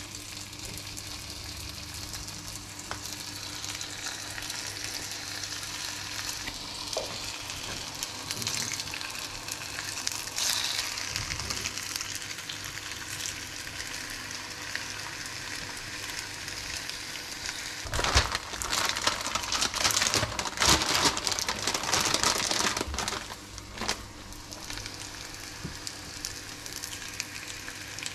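Slices of turkey ham sizzling in hot oil in a nonstick frying pan. The sizzle runs steadily, then swells much louder for about five seconds past the middle, with a few sharp taps of tongs against the pan.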